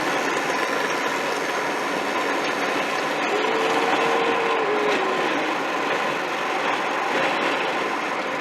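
Steady rushing noise of a vehicle on the move, with a held tone that comes in about three seconds in and drops away about two seconds later.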